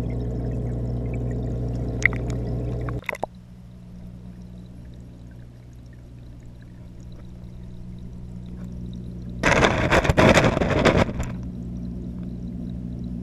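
Steady humming and bubbling of an aquarium's filter and air pump, heard underwater through a GoPro housing. The hum cuts off abruptly about three seconds in as the camera is moved. Near the end a loud watery rush lasting under two seconds, from the camera moving through the water, gives way to a quieter steady hum.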